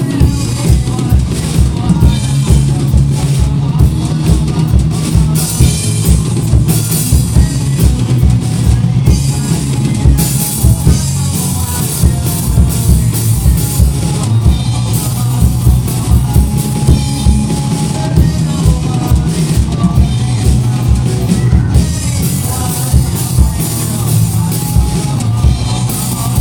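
Rock music: an instrumental stretch of the song, with a drum kit keeping a steady driving beat on the bass drum under bass and guitars.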